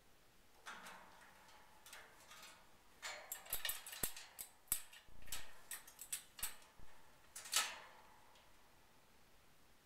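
Female Eclectus parrot moving about her metal cage, an irregular run of small clicks, taps and rattles from her beak and feet on the bars, perches and toys, busiest in the middle of the stretch and stopping before the end.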